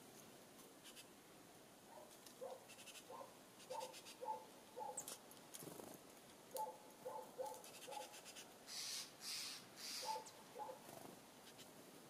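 Faint runs of short, quick, repeated calls from a distant animal, several bursts of three to five notes each, with a few brief hissy rustles near the end.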